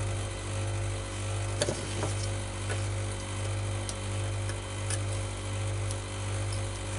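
A steady low hum that wavers about once a second, with a few faint clicks and ticks as a scalpel scrapes and picks flesh from the inside of a pheasant's head skin.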